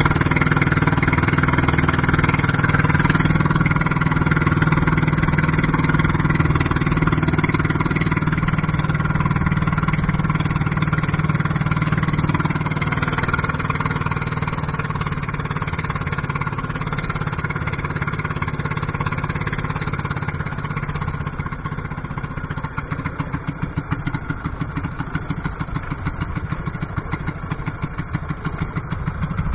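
A fishing boat's engine running steadily under way. About two-thirds of the way through, the sound turns uneven, rising and falling rapidly.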